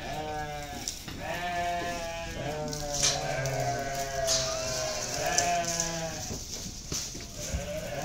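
A pen full of goats and sheep bleating, several calls overlapping and following one another without a break.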